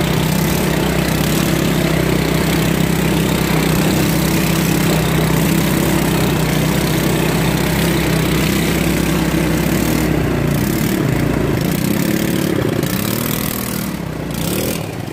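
ATV engine running steadily under a constant hiss. From about twelve seconds in, its pitch swings up and down as the quad comes close and passes, and the sound eases off near the end.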